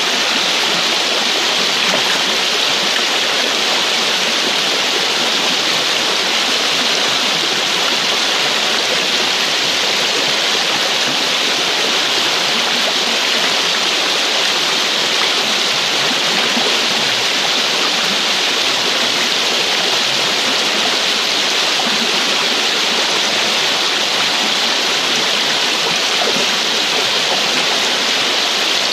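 Shallow, fast-flowing river water rushing and splashing around stones, a loud, steady rush close by.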